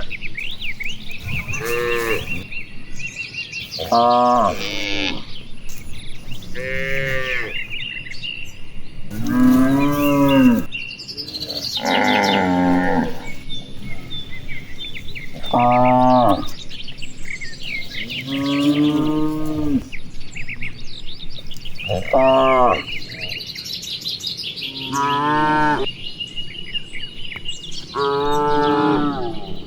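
A herd of cattle mooing, about a dozen separate moos from several cows, each roughly a second long and rising then falling in pitch. Birds chirp faintly between the calls.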